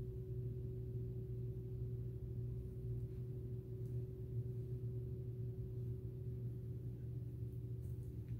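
Steady low machine hum with a fainter steady tone above it, unchanging throughout.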